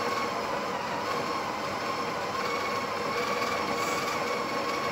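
The Breville Barista Express BES870's built-in conical burr grinder running steadily, grinding coffee beans on a fine setting into the portafilter for a single dose, with a whirring hum and a slightly wavering whine.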